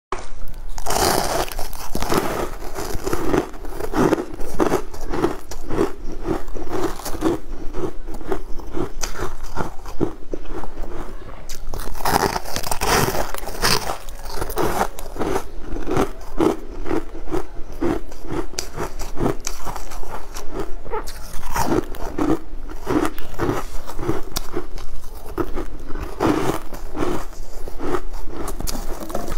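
Close-up crunching and chewing of purple frozen ice crystals, bitten off in chunks. It is a steady run of crisp, crackly crunches at about two chews a second.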